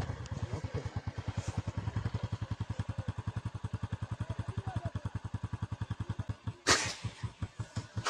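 A small engine idling nearby with a steady putt-putt of about ten beats a second. About two-thirds of the way in, a single sharp crack is the loudest sound, followed by a couple of faint clicks.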